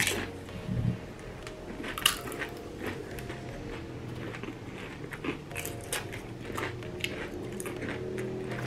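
Corn chips being bitten and chewed close to the microphone: irregular crisp crunches, sharpest right at the start and again about two seconds in.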